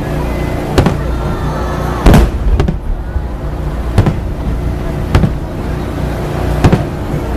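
Fireworks shells bursting overhead: six sharp booms about every one to one and a half seconds, the loudest about two seconds in, over a steady low background hum.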